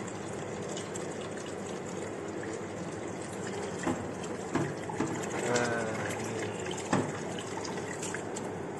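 Tap water running steadily from a kitchen faucet into a stainless steel sink, rinsing the used coffee grounds out of an espresso portafilter. A few short knocks come about four, five and seven seconds in.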